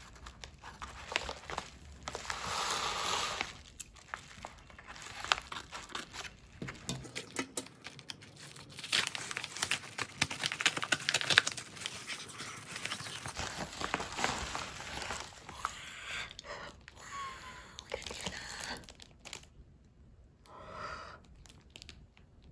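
Plastic courier mailer bag crinkling and tearing as it is ripped open by hand, with dense crackling rustles. Near the end, quieter rustling of the plastic wrap around the printed sheets inside.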